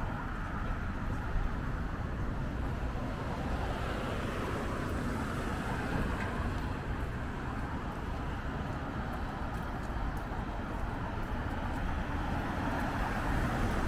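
Steady city street traffic noise: cars running along the road.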